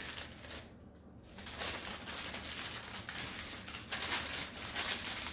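Paper wrapper of a sterile glove pack rustling and crinkling as it is unfolded by hand, growing busier about a second and a half in.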